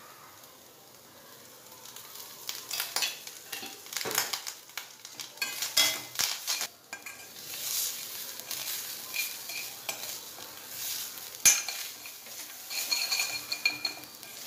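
Steel spoon stirring and scraping grated coconut around a stainless steel kadai, with irregular scrapes and clinks of metal on metal, one especially sharp, over a light sizzle of the ghee. The coconut is being roasted in ghee to drive off its moisture. The stirring starts about two seconds in.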